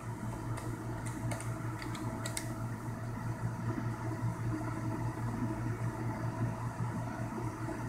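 Steady low hum of the ultrasound machine's cooling fans, with a few faint clicks in the first couple of seconds.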